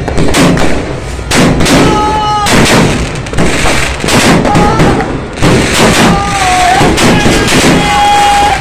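A barrage of fireworks and firecrackers going off: loud bangs and crackling one after another with hardly a gap, and several short whistling tones sounding over them.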